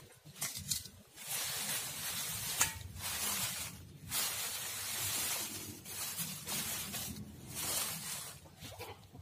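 Dry bamboo leaves rustling and crackling as hands gather them and pile them over the ground, in several bursts with short pauses between.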